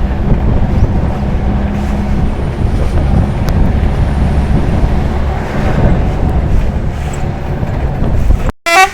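Bus engine and road noise, a steady low rumble. Near the end the sound drops out for an instant, and a telolet horn starts a multi-tone melody that steps up and down in pitch.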